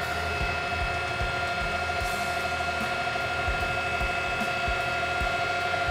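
Machine-driven twist drill cutting into a metal block with cutting fluid, a steady high-pitched whine with scattered low knocks as chips break away.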